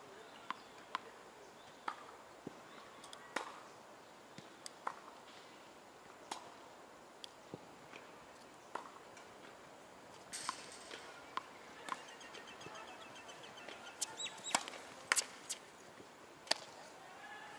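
Tennis balls being struck by rackets and bouncing on a hard court: scattered sharp pops roughly once a second, loudest in a quick cluster a little after two-thirds through.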